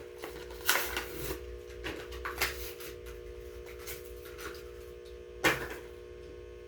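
Hot Wheels blister pack being torn open by hand: irregular crinkling and tearing of plastic and card, with one sharp snap about five and a half seconds in, over a steady electrical hum.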